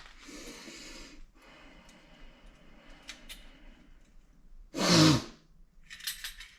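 A person's breathing, with a short loud vocal sound about five seconds in, then a brief light clicking rattle near the end. No alarm bell or horn sounds.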